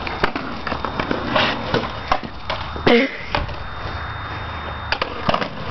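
Skateboard on a concrete driveway: a low rumble of wheels rolling, broken by several sharp, irregularly spaced clacks and knocks of the board.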